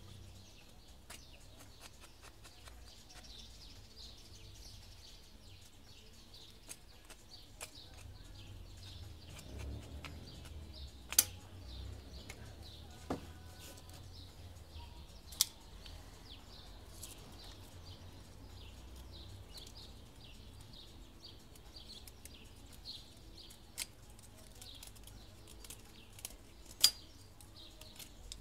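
Small birds chirping and singing in the background throughout, with a few sharp knocks and clacks from split kindling sticks being handled and set into a small metal wood-burning camp stove. The loudest knocks come about 11, 15 and 27 seconds in.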